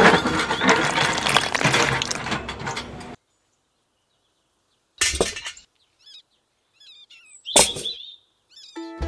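A loud crash of breaking and clinking for about three seconds that cuts off abruptly, followed by silence, two short knocks, a few bird chirps, and music starting just before the end.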